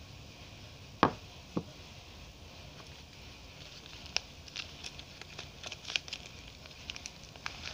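Two sharp knocks about a second in, then the crinkling and crackling of a bar soap's wrapper being handled and opened.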